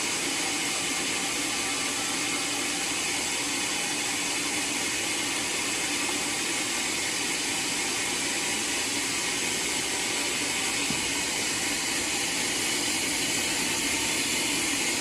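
Homemade sawmill running steadily, a continuous machine noise with a faint steady hum beneath it and no breaks.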